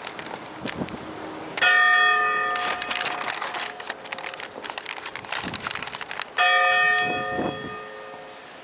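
Large church steeple bell rung slowly for the 13 original colonies, one stroke per state. Two strokes about five seconds apart, each ringing out with a rich stack of tones and fading away.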